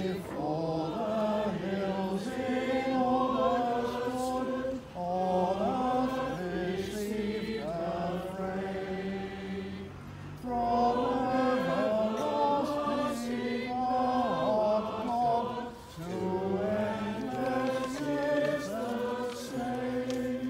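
Church choir singing in four sung phrases, each with a short breath-pause between.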